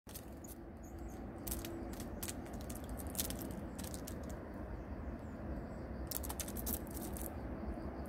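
Eurasian red squirrel's claws scratching and clicking on pine bark in several short clusters as it scrambles on the trunk, over a low steady background rumble.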